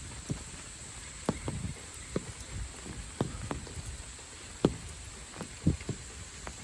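Rain: scattered heavy drops landing close by as irregular sharp taps, a few a second and unevenly spaced, over steady high-pitched insect calls.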